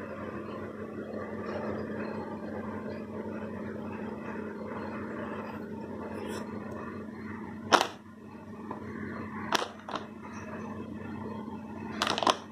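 Steady background hum and hiss with a few sharp clicks and crackles from handling: one loud click about eight seconds in, two more around nine and a half and ten seconds, and a short run of crackles near the end.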